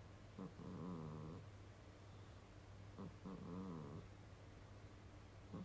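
Domestic cat snoring in its sleep, in a rhythm like a person's snore: two faint, drawn-out snores about two and a half seconds apart, each a wavering, buzzy tone that starts with a short click.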